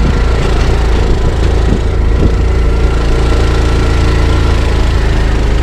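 A small vehicle's engine running steadily at an even pitch, heard from on board.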